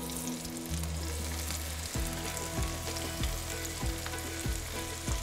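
Chopped vegetables, mushrooms, onions and spinach among them, tipped into hot bacon fat in a cast-iron skillet, sizzling as they hit the pan and frying on steadily.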